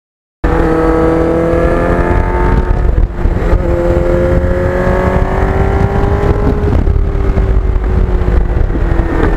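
Kawasaki Ninja GPX750R's inline-four engine running through a Norton muffler while riding. The note climbs, drops at a gear change about three seconds in, then climbs slowly again, over a loud low rumble. It cuts in suddenly just after the start and cuts off sharply at the end.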